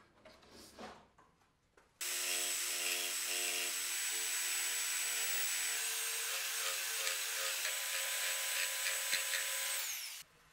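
Electric jigsaw cutting a curve through an MDF board: a steady motor whine over the rasp of the blade. It starts suddenly about two seconds in and winds down near the end, after a few faint knocks of the board being handled.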